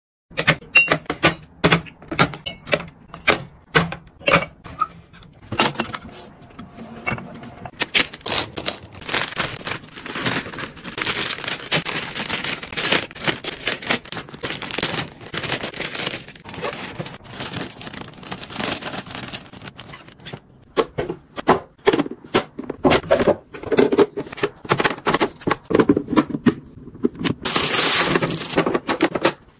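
Close-miked handling sounds: plastic containers, lids and food packaging clicking, knocking and rustling as food is sorted and put away in a refrigerator, with a run of steady rustling in the middle and a brief hiss near the end.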